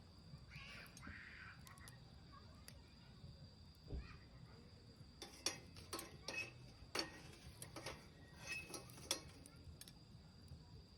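Wood fire in a Solo Stove crackling faintly: a soft thud, then a cluster of short sharp pops in the second half.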